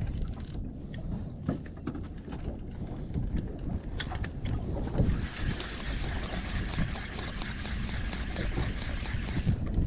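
Spinning fishing reel being worked: a few sharp clicks from the reel and line, then, from about five seconds in, a steady whirring hiss from the reel and line. A low wind rumble on the microphone runs under it.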